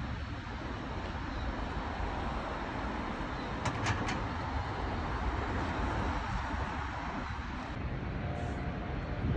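Steady rushing roar of the Horseshoe Falls, with a car driving past on the road in front and a few sharp clicks about four seconds in.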